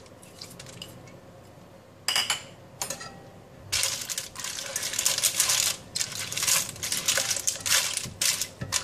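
Cooked clams clattering against a stainless steel wok and each other as they are stirred with a spatula. It starts with a short rattle about two seconds in, then turns into a dense, continuous clatter from about halfway through.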